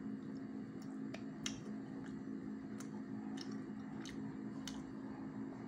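Someone chewing coffee-dunked pandesal, with short wet mouth clicks every half second to a second, over a steady low hum.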